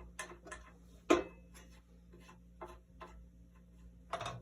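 Light, irregular clicks and knocks from hands working on a bandsaw's blade and tension adjustment, about two or three a second, with one sharp, loud knock about a second in.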